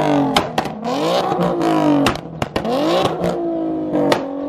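Ford Mustang engine revving over and over, its pitch climbing and dropping back about three times, with sharp cracks scattered through.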